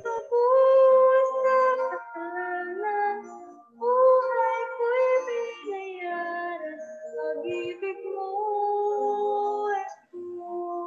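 A woman singing a slow melody, holding long notes of a second or two, in phrases broken by brief pauses about four seconds in and near the end.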